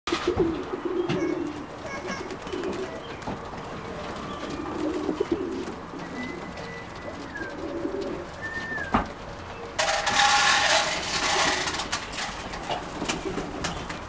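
Racing pigeons cooing in low, repeated calls, with a loud flurry of wing flapping about ten seconds in.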